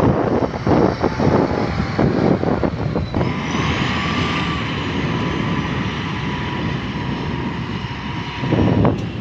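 Heavy machine's engine running steadily under load, loud and rumbling, with a short sharp click near the end.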